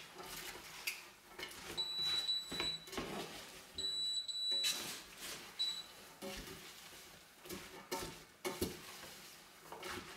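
Induction hob beeping: a high, steady beep lasting about a second, twice, about two and four seconds in, and a short one near six seconds. Under it, stainless-steel pans knock and clink while the mixture is worked by hand in a large stainless pot.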